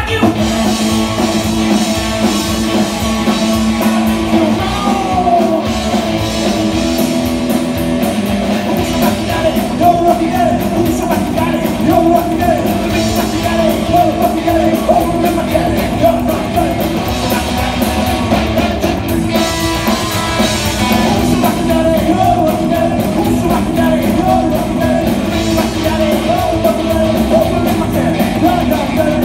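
Live rock band playing loud: electric guitars over a slapped upright double bass and a drum kit, with a wavering lead melody line.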